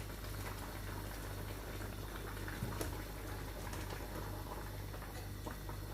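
Pot of meat and stockfish boiling: a steady bubbling hiss with scattered small pops, over a steady low hum.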